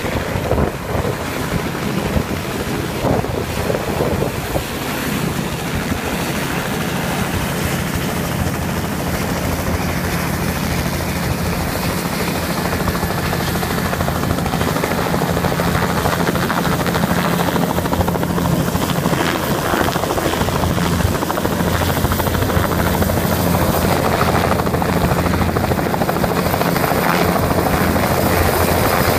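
Bell 206 JetRanger helicopter running on the ground with its rotor turning: a steady drone with a thin, high turbine whine that grows slightly louder as it goes.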